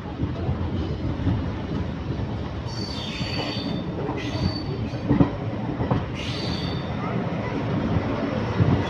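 Indian Railways passenger train running on the rails with a steady rumble. The wheels squeal high-pitched three times: about three seconds in, again a second later, and around six seconds in.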